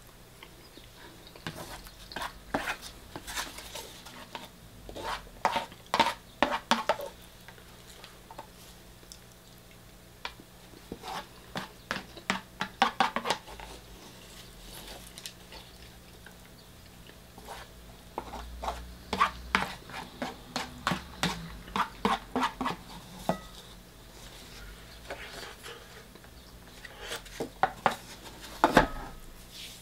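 Metal cutlery scraping and clinking against a plastic ready-meal tray in repeated short bursts, as the last of the food is scraped out.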